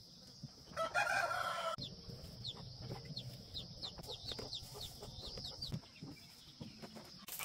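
A chicken gives one loud pitched call lasting about a second, followed by a run of short, high, falling chirps. A steady high-pitched hum runs underneath and stops near the end.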